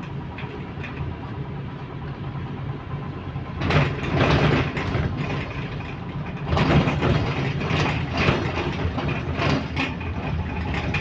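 Transit bus heard from inside the cabin: a steady low engine hum that grows louder and noisier about three and a half seconds in, and again past the middle, as the bus gets under way, with interior rattling.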